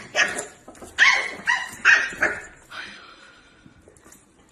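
Dog barking, a quick run of about six sharp barks in the first three seconds, then trailing off.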